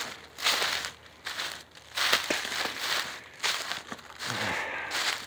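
Footsteps crunching through a thick layer of dry fallen leaves, about one step a second.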